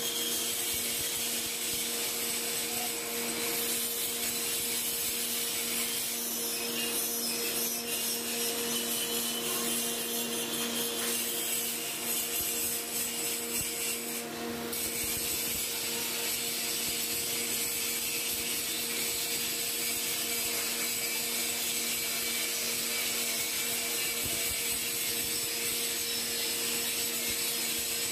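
Grinding machine running steadily, its wheel grinding metal: a continuous grinding noise over a steady motor hum, dipping briefly about halfway through.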